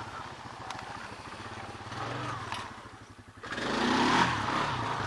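Small engine of a Honda off-road vehicle running at low speed with a steady pulse. It drops off briefly about three seconds in, then revs up louder with a rush of noise.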